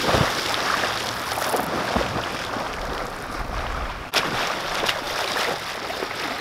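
Water splashing and churning as a swimmer in a wetsuit plunges into a lake and swims in through shallow water, with a brief break about four seconds in.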